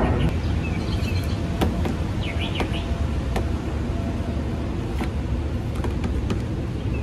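Scattered sharp clicks and taps of plastic cowl-trim retaining pins being pried out with a screwdriver, over a steady low rumble, with a brief bird chirp about two and a half seconds in.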